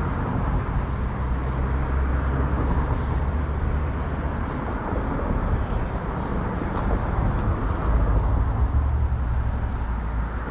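Wind rumbling and buffeting on the microphone over a steady rushing outdoor noise.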